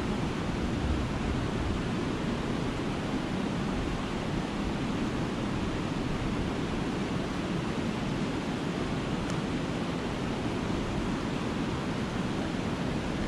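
Steady rushing of white water pouring over a river weir and churning in the pool below.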